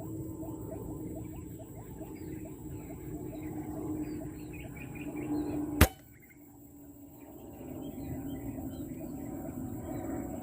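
Birds chirping in quick, repeated short calls, cut by a single sharp shot about six seconds in, the loudest sound; the chirping drops away for a moment after the shot, then picks up again.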